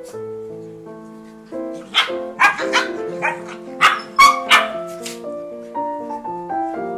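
Dogs barking and yipping in play, a quick run of sharp barks from about a second and a half in until about five seconds in, over steady background music.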